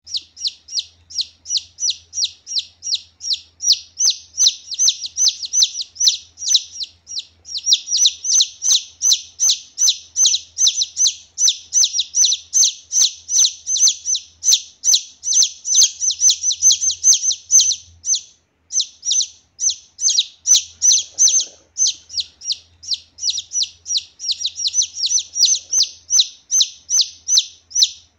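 Junglefowl chick peeping loudly and rapidly: a steady run of short, high, falling peeps, several a second, with only brief pauses. It is the chick's call for its mother hen.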